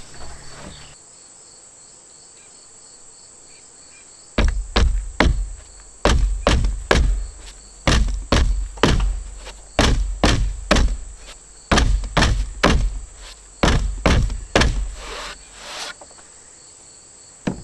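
Hammer blows thudding through a plywood roof deck: about two dozen strikes in quick groups of three or four, like nails being driven home. They start about four seconds in and stop about sixteen seconds in, over a steady chirring of insects.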